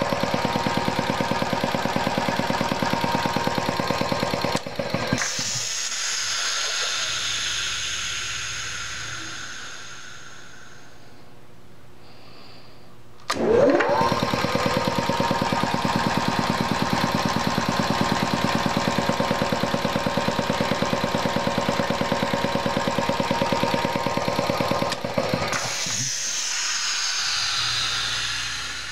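1967 Kellogg-American 5 hp belt-driven piston air compressor running with a fast steady pumping beat, then shutting off about five seconds in, followed by a long fading hiss of air. About thirteen seconds in it starts again, its motor whining up to speed, runs steadily, and near the end shuts off again with another hiss.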